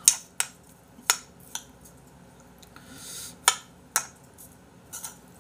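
Metal spoon clinking against a bowl while eating: about seven sharp, separate clinks at uneven intervals.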